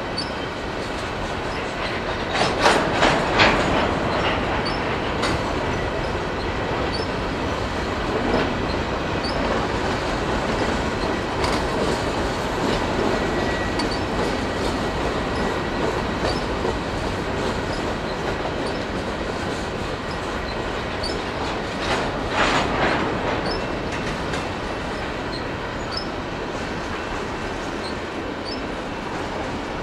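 Empty covered grain hopper cars of a freight train rolling past, a steady rumble of steel wheels on rail with clickety-clack. Louder bursts of clattering come about three seconds in and again about 22 seconds in.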